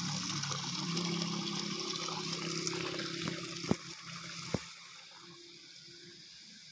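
Water running and trickling over a low steady hum, fading off about two-thirds of the way through, with two sharp knocks a second apart just before it fades.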